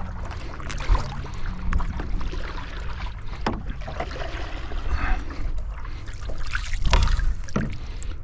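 Paddle strokes dipping and splashing in shallow water as a small paddle craft moves out to retrieve a downed duck, over a low wind rumble on the microphone.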